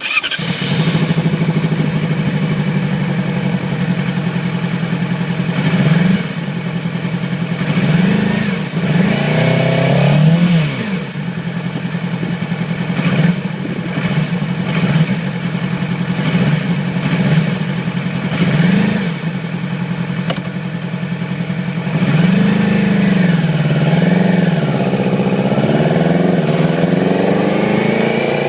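2008 Yamaha YZF-R6 inline-four sport-bike engine firing up, then idling unevenly and being revved in a series of short throttle blips, with longer revs near the end. It is running on three cylinders: one cylinder is misfiring because of a failed ignition coil.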